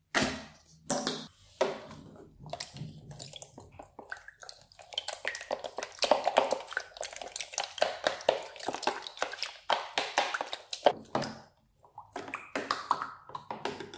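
A squeeze bottle squirts green colouring in the first couple of seconds. Then a plastic spoon stirs the wet mix of white glue, water and colouring in a plastic tub, making rapid wet clicks and squelches. The stirring stops briefly about a second before the end and then starts again.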